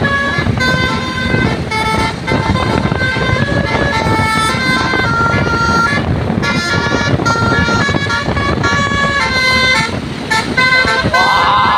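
A bus's Basuri telolet horn playing a melody of short, changing notes, over the rumble of the bus and street. A wavering cry cuts in near the end.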